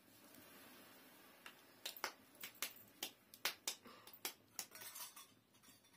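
About two seconds in, an irregular run of about a dozen sharp clicks and snaps sets in and lasts some three seconds, over a faint steady hiss.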